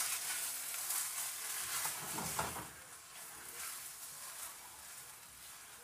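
Jollof rice mixture of raw rice, tomato sauce, onion and bell pepper being stirred in a nonstick skillet, sizzling and scraping as it is turned over. The stirring is louder for the first three seconds or so, then softer.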